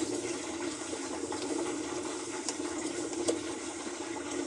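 Brastemp washing machine's drum shaft turned by hand, its bearings giving a steady rough grinding with a few faint clicks: the bearings are worn out, ground up.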